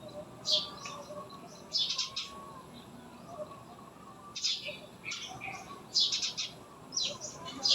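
Small birds chirping in short, separate bursts of high-pitched notes, a few times across the stretch.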